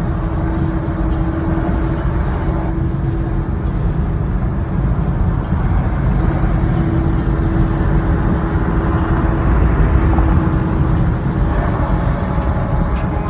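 Car driving at road speed: steady road and engine noise, with a faint steady hum.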